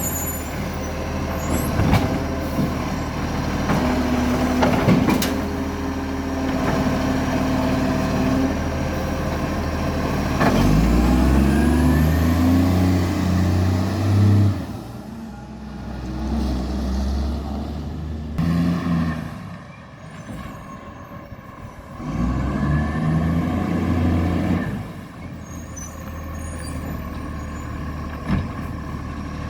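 Garbage truck's diesel engine running, revving up twice for a few seconds each time, with a few sharp knocks early on. The truck has a very bad exhaust leak.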